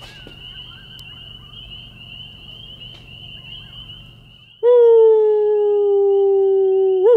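A steady high-pitched trill of night insects over a low hum. Then, about four and a half seconds in, a loud long howl comes in: one held note sliding slowly down, breaking into a quick wavering at the end.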